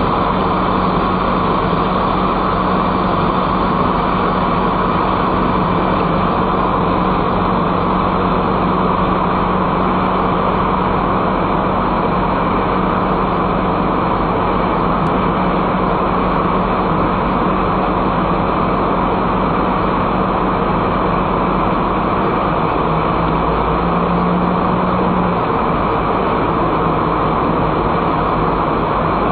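Steady road and engine noise of a car driving through a road tunnel, heard from inside the car: an even rush of tyre noise with a constant low hum underneath.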